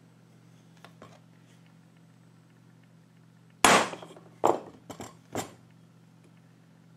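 Hammer striking a steel pin punch to drive the pins out of a knife's handle scales, metal on metal. Two light taps come about a second in, then a quick run of four or five sharp blows from about halfway through, the first the loudest.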